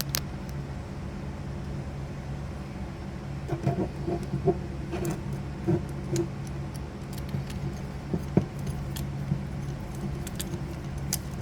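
Small metal parts of a pinball score reel clinking and tapping as they are handled and fitted together, with scattered light metallic clicks through the middle, over a steady low hum.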